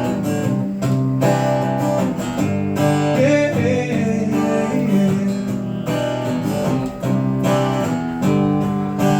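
Acoustic guitar strumming chords in an instrumental break between sung lines of a slow country-blues song.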